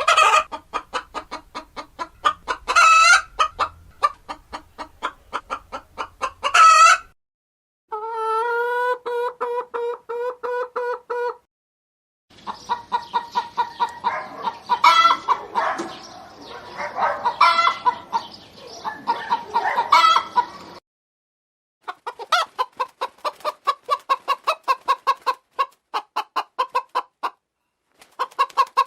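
Hens clucking in quick runs of short clucks, several a second, broken by a few louder, longer calls. It plays as several separate recordings, each a few seconds long, with brief silences between them.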